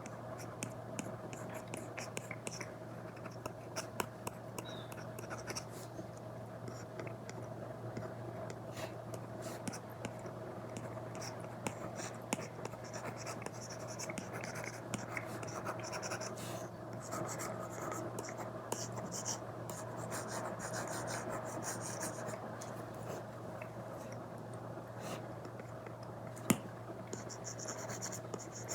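Apple Pencil Pro stylus tip stroking and tapping on an iPad screen covered with a paper-like film: scratchy drawing strokes broken by many small taps, over a steady low hum. One tap near the end is louder than the rest.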